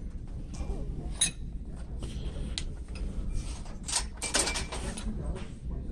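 Scattered light clinks, knocks and rustles of exhaust parts and their packaging being handled and picked through on a shelf.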